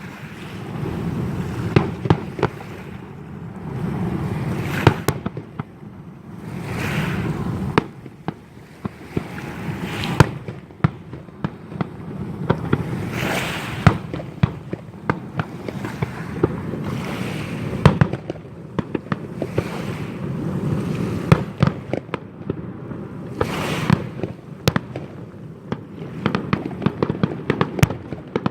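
Fireworks display: a continual rumble of aerial shell bursts with many sharp cracks and bangs, and several longer hissing swells.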